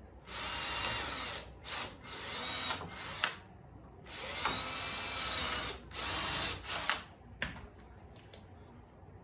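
Cordless drill drilling pilot holes into pine boards in several bursts, three runs of a second or more with a few short blips between, its motor whine rising and falling in pitch as the trigger is squeezed and eased.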